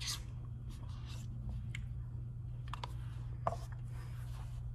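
A spoon scraping and tapping in an oatmeal cup, in short scattered scrapes and clicks over a steady low hum. A sharper knock comes about three and a half seconds in, as the cup is set down.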